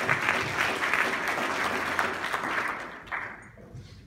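Audience applauding, a dense patter of many hands clapping that dies away after about three seconds.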